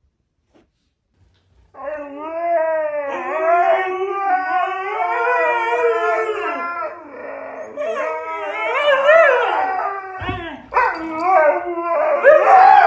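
Huskies 'talking': long, wavering howl-like woos and yowls whose pitch bends up and down, starting after almost two seconds of near silence.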